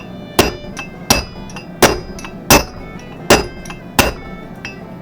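Hammer blows on metal driving a front wheel bearing race down into its hub until it seats: six sharp, evenly spaced strikes about every three quarters of a second, each with a short metallic ring, then a lighter tap near the end.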